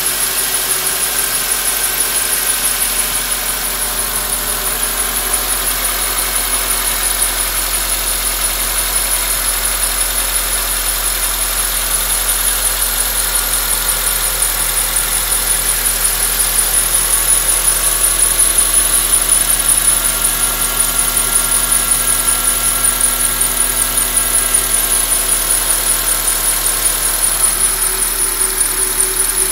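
2004 Honda Accord's K24 2.4-litre four-cylinder engine running steadily, with a loud, high-pitched squeal that pulses rapidly over the engine sound. The owner cannot tell what causes the noise.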